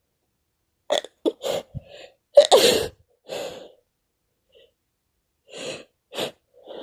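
A run of sneezes in quick succession, the loudest about two and a half seconds in, with a few more short ones near the end.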